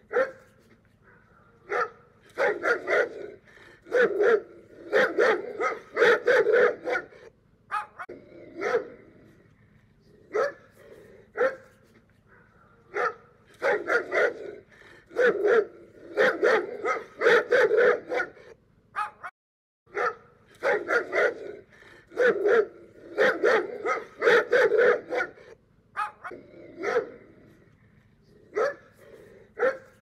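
A dog barking over and over, in runs of quick barks separated by short pauses.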